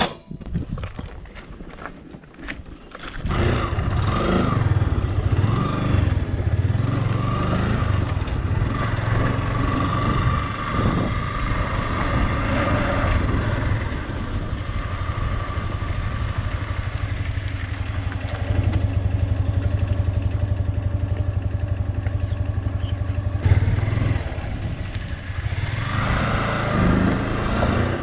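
A few clicks and knocks, then about three seconds in a sport motorcycle's engine starts and runs steadily as the bike is ridden along.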